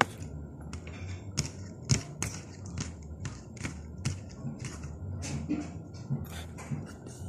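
Eating sounds from a man eating rice with his hand: a string of sharp, irregular clicks and smacks, about two or three a second, one louder about two seconds in.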